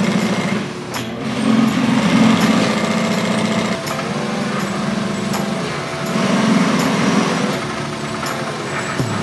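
Industrial sewing machines stitching in runs of one to a few seconds, with short pauses between runs.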